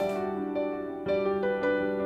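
Instrumental background music: a melody of single struck notes over a steady held low note.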